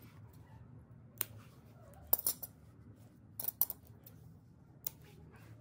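Scissors snipping about half a dozen times in short, sharp clicks spread over a few seconds, the loudest in pairs around the middle.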